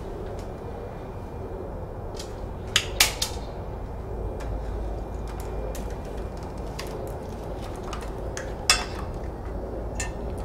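Small objects clinking and knocking as they are handled and set down on a bathroom shelf, with a few sharp clinks about three seconds in and one more near nine seconds, over a low steady hum.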